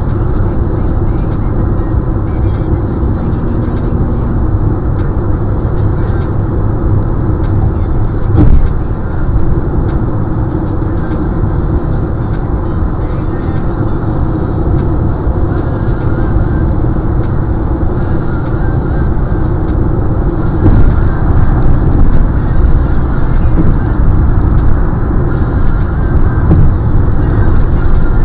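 Steady road and engine noise of a car at highway speed, heard from inside the cabin, with a single thump about eight seconds in. The noise grows louder from about twenty seconds in.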